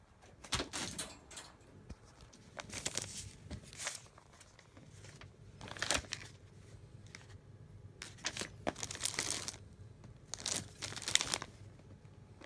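Plastic Inaba CIAO cat-treat pouches crinkling as they are handled, in several separate bursts of rustling.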